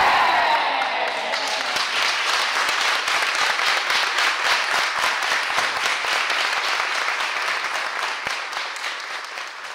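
Audience applauding, many hands clapping densely, fading gradually toward the end. At the start a group shout dies away.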